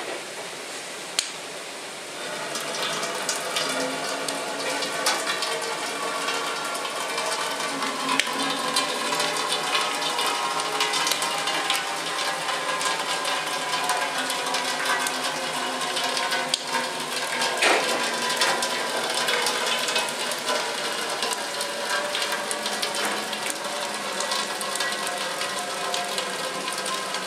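Maple sap boiling hard in an evaporator's pans while finished syrup runs out of the opened draw-off valve. The sound rises about two seconds in and then holds steady.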